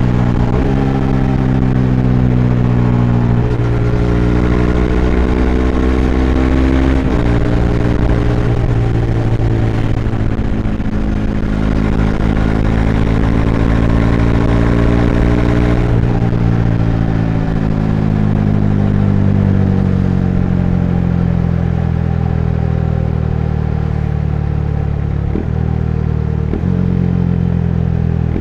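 Bajaj Dominar 400's single-cylinder engine running under way. Its pitch climbs and steps down a few times as it shifts up through the gears, then falls slowly as the bike slows down, with two short breaks near the end.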